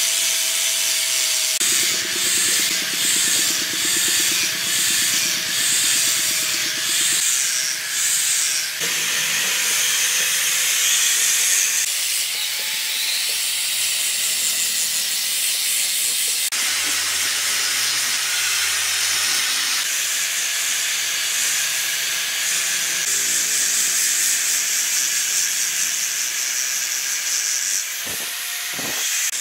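Electric angle grinder with a sanding disc grinding down wood: a steady motor whine under a loud rasping hiss. For the first several seconds the hiss swells and eases in strokes about every half second as the disc is worked back and forth.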